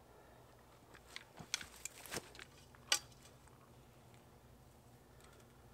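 Scattered faint clicks and taps of fishing gear being handled, such as fish grips taken from a cart, with the sharpest click about three seconds in.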